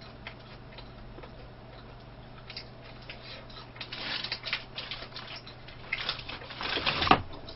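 Paper wrapper around a pastry crinkling as it is handled, with small mouth clicks of eating; the rustling is densest about four seconds in, at a bite, and again near the end.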